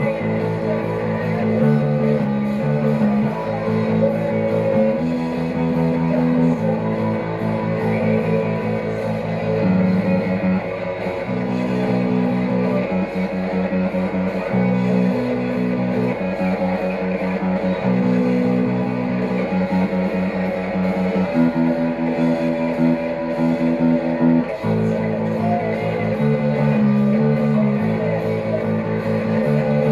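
Punk rock played on electric guitar with bass: strummed chords that change every couple of seconds, with no singing.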